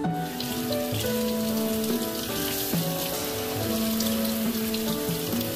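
Tap water running steadily onto black olives in a stainless-steel mesh strainer over a metal sink, a continuous splashing hiss. Background music of held, gently changing notes plays under it.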